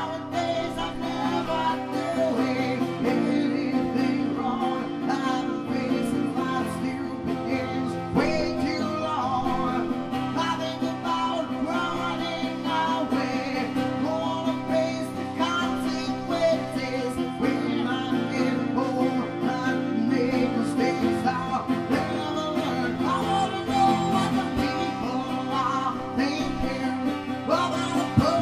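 Twelve-string acoustic guitar strummed steadily, with a man's voice singing along.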